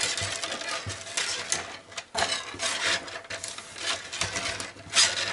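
Flat steel recoil spring of a 1/5-scale RC pull starter scraping and rubbing against the workbench and its nail jig as it is wound by hand into a tight coil, with a few louder scrapes and clicks, the loudest near the end.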